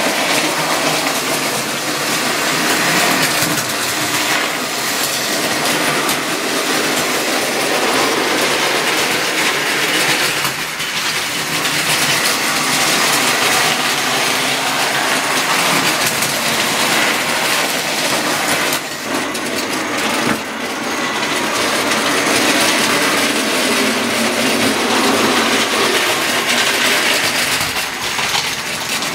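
Tri-ang OO-gauge model trains running on steel sectional track: a steady mechanical running noise from the locomotives and wheels on the rails, dipping briefly twice about two-thirds of the way through.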